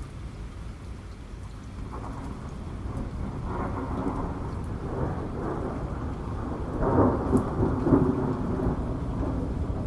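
Thunderstorm: steady rain with a low, rolling rumble of thunder that builds from about two seconds in and is loudest around three quarters of the way through.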